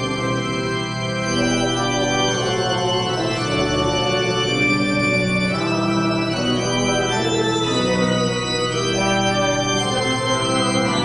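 Organ music: sustained chords that shift every second or so over a steady held bass note.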